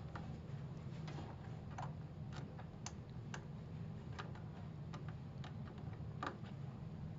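Scattered light clicks and taps, about one every half second to a second at irregular spacing, from plastic cable connectors being handled and plugged in inside a desktop computer case, over a steady low hum.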